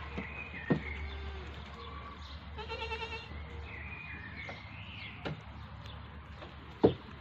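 An animal's bleating cry, short and wavering, about three seconds in, with thinner high-pitched calls before and after it and a few sharp clicks.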